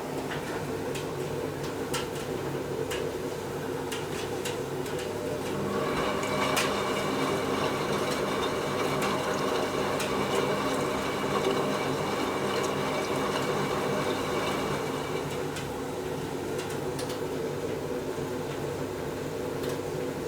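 Hotpoint washing machine running a hot wash, with a steady machine hum and light knocks throughout. A higher motor whine starts about six seconds in and stops about fifteen seconds in, as the drum turns through a tumble.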